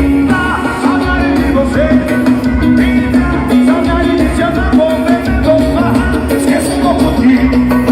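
Loud music with a singing voice and heavy bass, played through a paredão de som: a wall of car audio speakers with two subwoofers.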